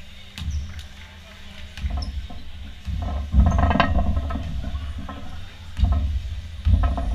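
Indoor volleyball play in a sports hall: several sharp hits of the ball spread through the stretch, over a low rumble, with a louder burst of noise about halfway through.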